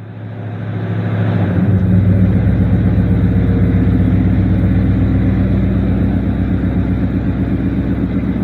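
Chevy small-block V8 in a 1978 Nova running at a steady, even idle. It fades in over the first couple of seconds.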